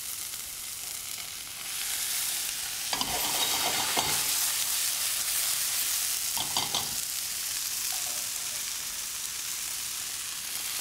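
Vegetables sizzling in hot oil in a frying pan as wet, just-blanched vegetables go in straight from boiling water and are stir-fried. The sizzle grows louder about two seconds in, with a few short knocks of the utensils against the pan.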